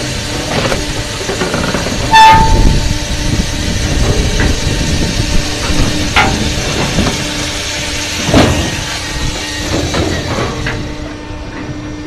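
Firewood processor running: a steady machine drone from the saw and hydraulics while its saw bar finishes a cut through a large log and the log is fed forward. A short, loud high squeal about two seconds in, and several knocks later as the log moves.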